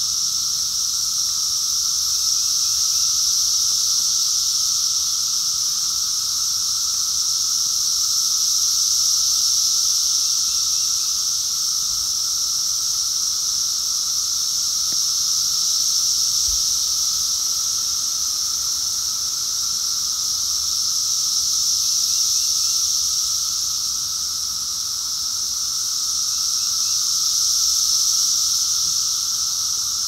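Dense chorus of Brood X periodical cicadas, the males calling all together at peak emergence: a loud, unbroken high-pitched drone with a second, lower steady hum beneath it. It swells and eases slowly every few seconds.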